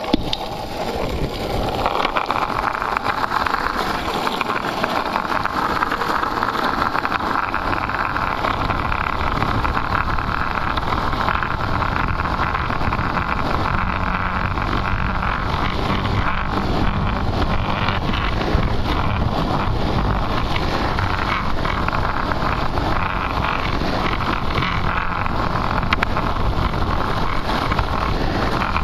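Steady rush of wind on the microphone over the rolling roar of longboard wheels on coarse asphalt, building up over the first couple of seconds as the board gathers speed downhill.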